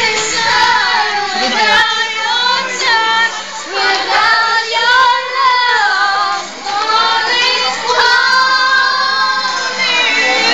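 A group of teenage schoolgirls singing together, holding long notes with wavering pitch.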